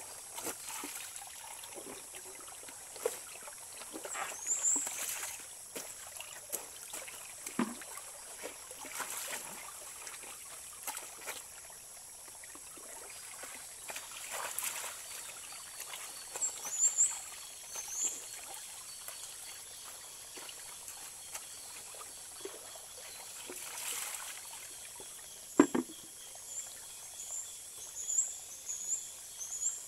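Shallow stream trickling over stones, with splashes and drips as a wet blanket is worked and lifted in the water. A sharp knock sounds about four seconds before the end. Short bird chirps and a steady high insect buzz run behind.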